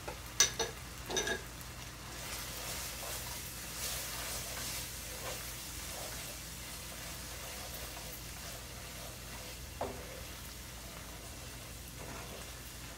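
Onion-tomato masala sizzling and simmering in a pan on a gas stove, a steady hiss that swells for a few seconds, with two sharp clicks about half a second and a second in and a softer knock near ten seconds, a utensil against the pan.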